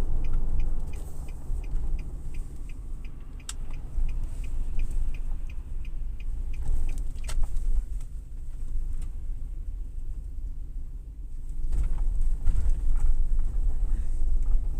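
Cabin rumble of a 2005 Nissan Armada's 5.6-litre V8 and road noise while driving, the engine running smoothly with no misfire after the cylinder 8 repair. A light, regular ticking, about three a second, runs through the first six seconds; the rumble eases for a few seconds and then grows louder again near the end.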